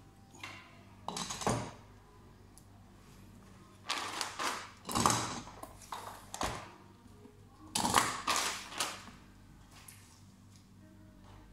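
Handling noises: several short rustles, knocks and clatters of tools and parts being picked up and moved, the loudest about five and eight seconds in, over a faint steady low hum.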